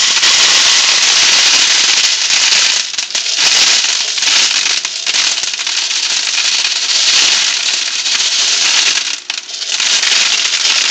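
Plastic airsoft BBs pouring in a stream from their container into a plastic soda bottle: a continuous dense rattle of many small pellets, easing briefly twice.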